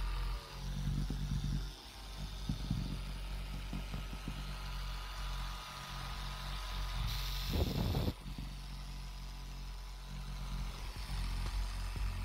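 Small handheld mini rotary buffer running steadily with a wool pad, polishing compound into the gelcoat around a boat's chrome lettering, a steady motor whine over a low hum. A short louder noise comes about seven and a half seconds in.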